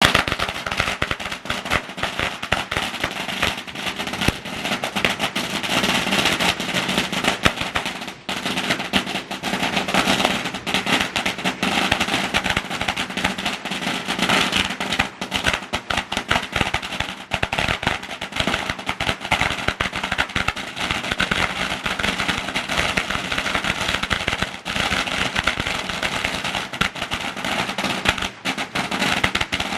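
A long string of firecrackers going off in a continuous rapid crackle of bangs, with a brief break about eight seconds in.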